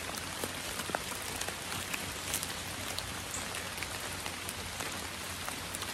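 Light rain falling steadily on leaves and leaf litter, with many single drops ticking.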